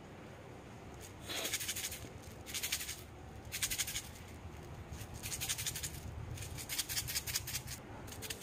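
Small candies rattling inside plastic baby-bottle-shaped containers as they are shaken, in several short bursts of about half a second to a second each.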